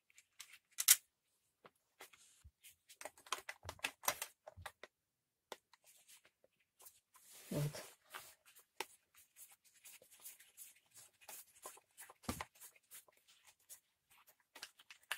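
Scattered light clicks and scrapes of a screwdriver working screws and handling the plastic fuel tank and housing of a petrol brush cutter as it is taken apart. A short low voice-like sound comes a little past halfway.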